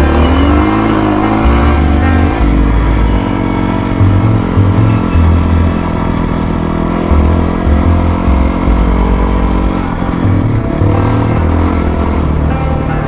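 Background music with a heavy, stepping bass line, laid over a 450 cc four-stroke dirt bike engine revving, its pitch rising and falling about a second in and again near the end.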